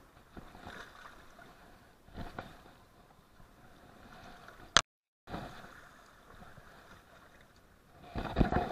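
Faint rushing river water, with a single sharp click a little before halfway and a cluster of knocks and rattles from handling near the end.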